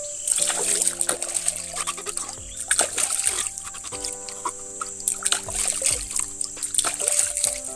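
Water splashing and trickling as a bamboo shoot is rinsed and rubbed by hand in a shallow stream, in uneven bursts, over background music of sustained chords.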